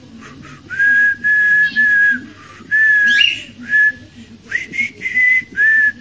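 A whistled tune of clear, held, level notes, several in a row with short gaps between them. About three seconds in there is a brief, sharp rising squeak.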